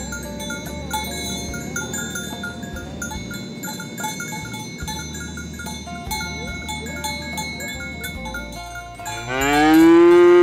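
Background music with a light, stepping melody, then near the end a loud, drawn-out cow moo that rises in pitch and cuts off sharply.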